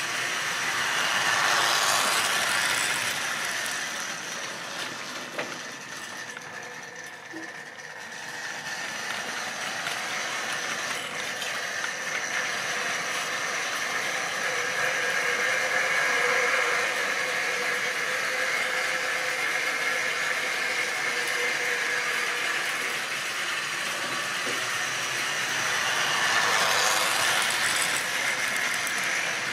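Model train running round the layout: a tank locomotive's electric motor whirring and a long rake of open wagons rattling over the track. The sound swells as the train comes close about two seconds in and again near the end.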